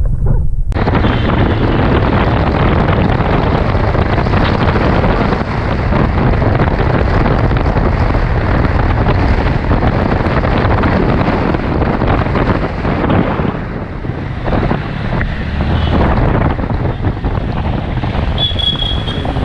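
Wind buffeting the GoPro Hero 5 Black's built-in microphone while riding, a loud, continuous rushing roar with road noise beneath it. It cuts in abruptly just under a second in, and a brief high tone sounds near the end.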